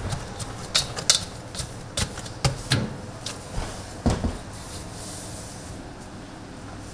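Irregular clacks and knocks of objects being handled, about a dozen over the first four seconds or so, then only a steady background hiss.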